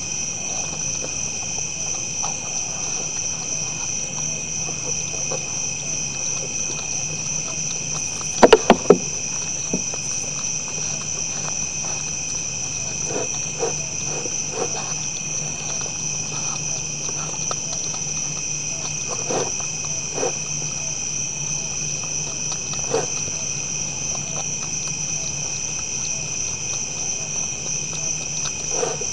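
Steady chorus of night insects chirping continuously, with scattered faint clicks as whitetail bucks feed from plastic bowls. About eight and a half seconds in come three sharp knocks in quick succession, the loudest sounds.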